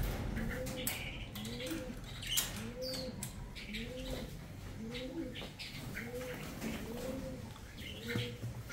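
Pigeons cooing in a steady repeating rhythm, about one coo every two-thirds of a second, with short high chirps of smaller birds and a few light clicks scattered through.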